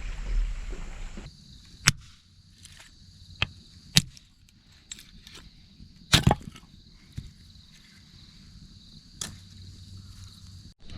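Dry hardwood being split for the campfire: sharp, irregular chopping strikes of a blade into the wood, about seven over several seconds.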